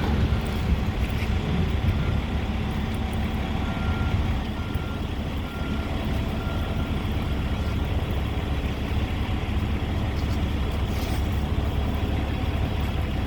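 Steady low rumble of a running engine from heavy equipment. A few seconds in, a faint backup alarm beeps about five times.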